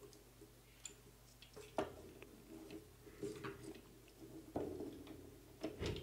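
Light, scattered clicks and taps from handling a plastic push-button control station while a wire is fitted into one of its terminals.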